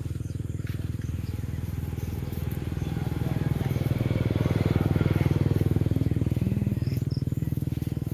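A small engine running steadily with a fast, even beat, growing louder toward the middle and easing off near the end.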